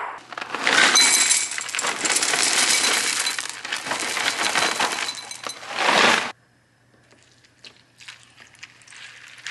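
Dry, colourful ring cereal poured from its box into a ceramic bowl: a dense rattling clatter of pieces hitting the bowl for about six seconds, stopping suddenly. Near the end, milk is poured in faintly.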